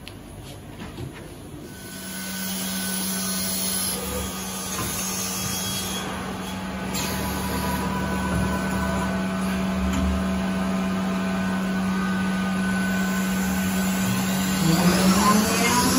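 SHINX CNC router starting up: a steady machine hum comes on about two seconds in and holds. Near the end a rising whine climbs as the spindle spins up to speed.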